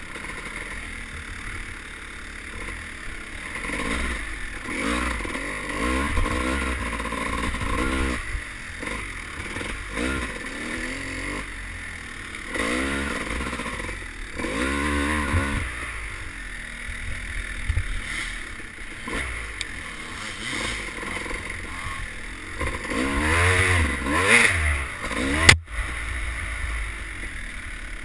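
Dirt bike engine on a trail ride, revving up and down over and over as the throttle is worked. Near the end there is one sharp knock.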